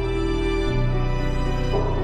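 Sad background music, slow sustained chords that change a little after half a second in.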